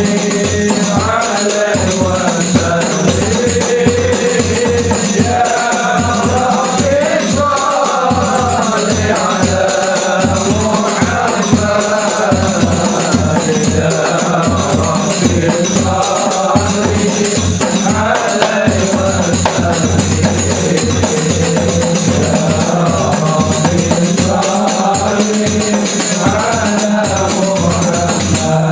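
Hadrah ensemble: voices singing sholawat together in a chant-like melody over a steady, even rhythm of hand-struck rebana frame drums and a large bass drum.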